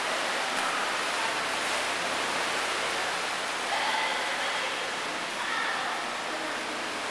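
Steady wash of splashing water echoing around an indoor pool, with faint shouts about four seconds in and again a little later.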